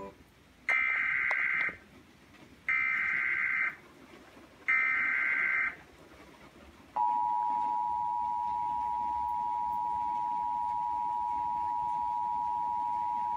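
Emergency Alert System broadcast signal: three one-second bursts of SAME digital header tones about a second apart, then the steady two-tone attention signal starts about seven seconds in and holds. It marks the start of an emergency alert, here a tornado warning.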